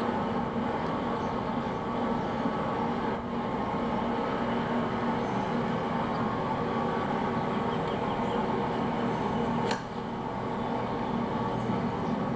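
Golf broadcast audio heard through a TV's speaker: a steady background hum, then, about ten seconds in, a single sharp click of a 7-iron striking the golf ball.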